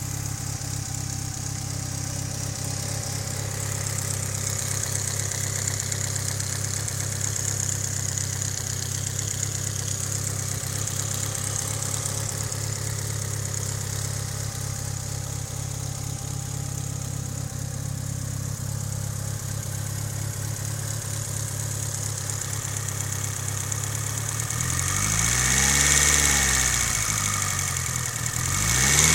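Mitsubishi Lancer Evolution VIII's 4G63 turbocharged four-cylinder idling warm, with a tick that the owner puts down to the lifters. The engine is revved briefly about 25 seconds in and starts rising again near the end.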